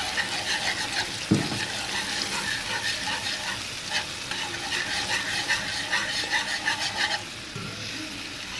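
A wire whisk beating tomato purée and gram flour in a pan, a rhythmic scraping and clinking of a few strokes a second over a light sizzle, working the flour in so no lumps form. One sharp knock about a second in.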